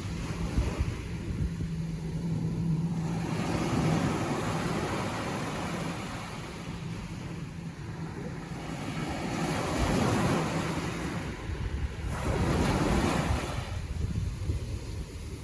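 Ocean surf breaking and washing in repeated surges that swell and ebb, the strongest about four seconds in and again in the last third. A faint steady low hum runs under the first few seconds.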